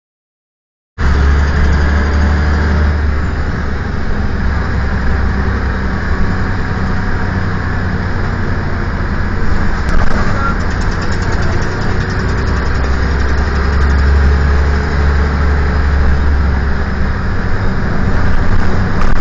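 Volvo B10L bus's diesel engine running steadily, a deep low drone that starts about a second in.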